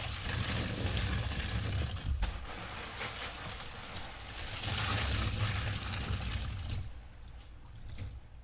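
A sponge full of fabric-softener suds being squeezed and rinsed, with soapy water pouring and trickling out of it. The sound comes in two long swells and dies down near the end.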